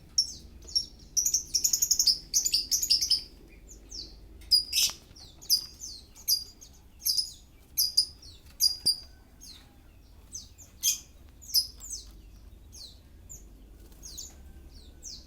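Oriental magpie-robin (kacer) in full breeding condition calling. It gives a quick, dense run of sharp high chirps in the first few seconds, then single short sharp notes repeated about once a second.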